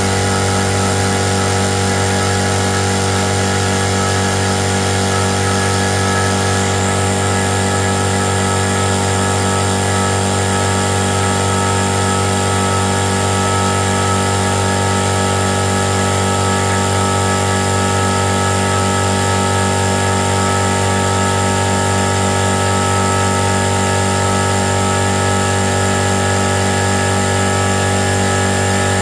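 A power tool running steadily at constant speed, with a slight change in its higher tones about seven seconds in.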